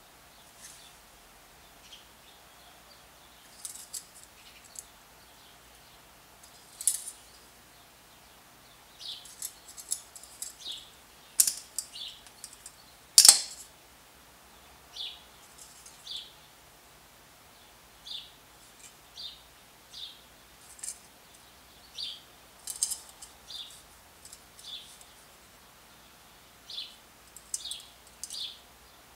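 Cold Steel Kudu folding knife being worked by hand: irregular small metallic clicks and ticks from its ratcheting blade and the clinking pull-ring lock, with one louder snap near the middle.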